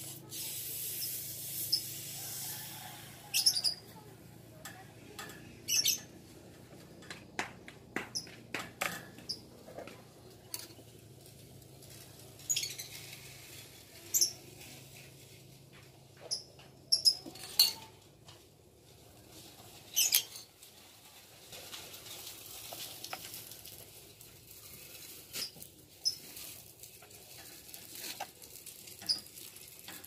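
Scattered small clicks, taps and scrapes from hands working the refrigerator's copper capillary tube and filter drier, with short high bird chirps every few seconds.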